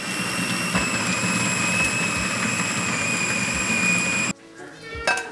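Electric food processor motor running with a steady high whine while banana flower is sliced through its feed chute; it cuts off suddenly about four seconds in.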